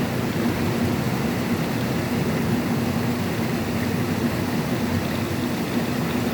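Steady rain, a constant even rushing noise with no let-up.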